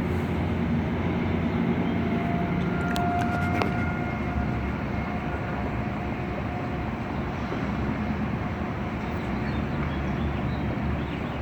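Steady rumble of city traffic from far below, with a faint distant outdoor warning siren tone coming in a few seconds in, barely audible under the traffic.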